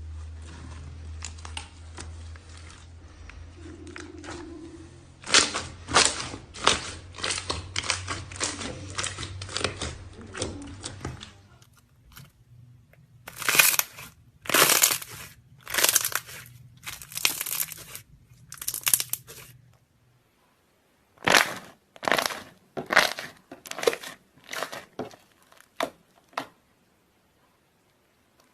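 Slime being squeezed and pressed by hand, with runs of sharp pops and crackles as trapped air bubbles burst, in three separate stretches with short silences between them. A low hum runs under the first stretch.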